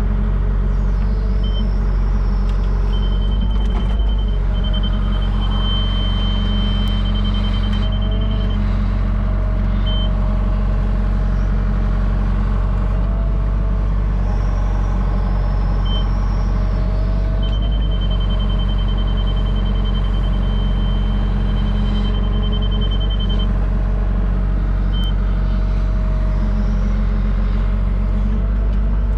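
Cat 304 mini excavator's diesel engine running steadily, heard from inside the cab while it digs, with the Trimble grade control system's guidance tone beeping: two runs of rapid high beeps of several seconds each, and single beeps between them. The operator follows the tone to bring the bucket onto grade.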